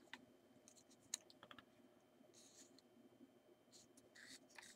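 Near silence, broken by a few faint clicks and light metal scrapes as a lens is screwed by hand into the Zorki 4 camera's M39 thread mount; the sharpest click comes a little over a second in.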